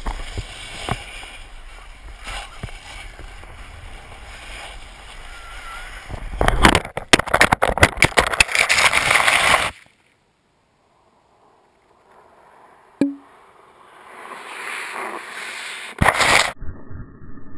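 Snowboard carving on snow, with wind rushing over a GoPro camera housing on a pole. About six and a half seconds in comes a loud, jumbled crash of snow scraping and pelting the camera as the rider wipes out. It cuts off suddenly into silence, and a fainter snow rush follows with a brief loud burst near the end.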